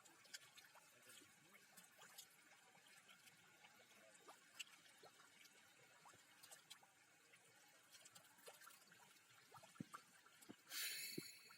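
Near silence with faint scattered small splashes and drips of pond water, then a short burst of hiss about ten and a half seconds in.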